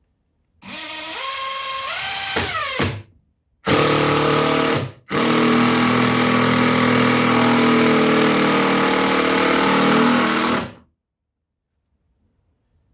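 Power drill running in three bursts: a short one with the motor speed climbing and then dropping, then a brief run, then a steady run of about five seconds, typical of driving long screws into subfloor.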